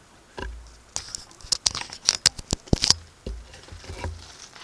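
Handling noise on the camera as it is moved. There is a dense run of sharp clicks and rustles in the middle, with a low thump near the start and another about three seconds in.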